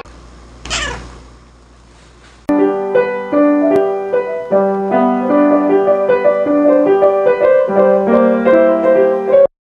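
Piano music: a moving melody over held low notes, starting about two and a half seconds in and cutting off suddenly near the end. Before it, a brief falling sweep sound about a second in.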